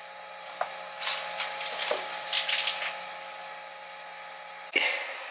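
Rustling and scraping among clutter, with a few light clicks, over a steady low hum. A sudden loud knock comes near the end.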